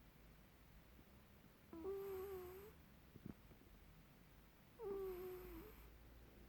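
A sleeping cat's squeaky snore: two faint, steady, whistling squeaks, each about a second long and about three seconds apart.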